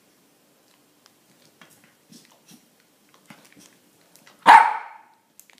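A small dog barks once, loudly, near the end, after faint crinkling of a foil snack-bar wrapper.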